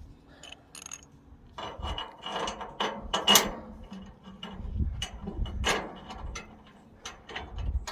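Irregular metallic clicks and rattles from a sawmill's cable lift mechanism, the cables that raise and lower the saw head, as it is being worked and adjusted.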